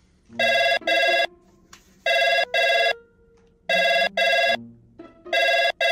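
Telephone ringing in double rings, four pairs about a second and a half apart: an outgoing call ringing out with nobody answering.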